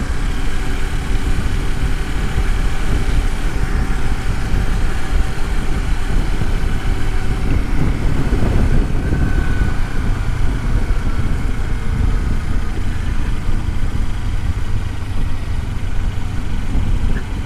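Kawasaki Versys-X 300 motorcycle engine running on a ride, heard through a helmet-mounted microphone, with a steady low rumble of wind and road noise. A few steady engine tones in the first half give way to a rougher, noisier rumble about halfway through.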